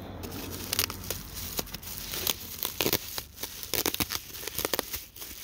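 Plastic bubble-wrap bag crinkling and being torn open by hand, with irregular sharp crackles and snaps.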